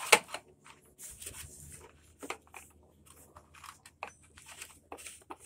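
Gloved hand brushing and wiping dust and grass debris off a lawn mower deck: irregular scratchy brushing with small clicks and knocks, and one sharp click just after the start.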